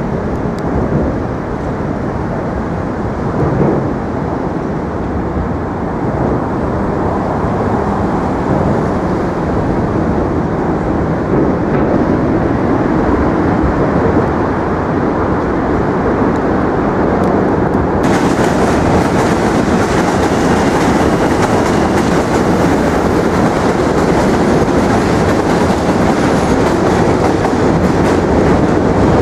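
A New York City subway train rumbles and clatters across the Manhattan Bridge's rail tracks beside the walkway: a loud, continuous sound that grows a little. About two-thirds of the way through a brighter hiss joins it.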